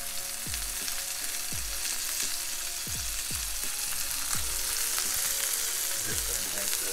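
Ground turkey searing in oil in a hot cast iron skillet, sizzling steadily. Under the sizzle, low tones drop in pitch every second or so.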